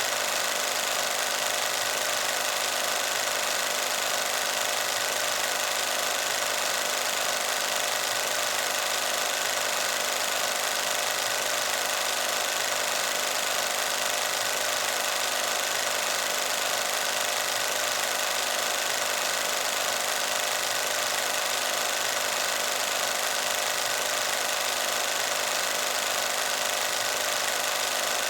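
Film projector sound effect: a steady mechanical running noise with no breaks.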